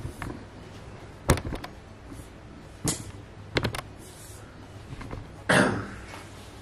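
Handling noises of boxes and packaging: a few sharp knocks and taps as pieces are picked up and set down, then a longer, louder scraping rustle near the end.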